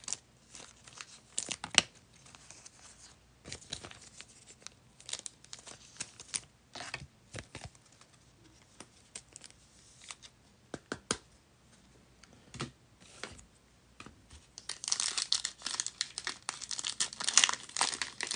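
Foil trading-card pack being torn open and its wrapper crinkled, loudest in the last few seconds. Before that, scattered light clicks and rustles of handling.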